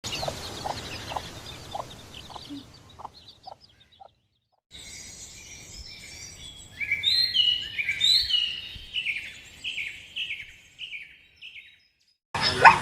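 Birds chirping and singing in two separate recordings. The first is a series of short repeated calls. After a brief silence comes a run of short, falling whistled notes that cuts off near the end.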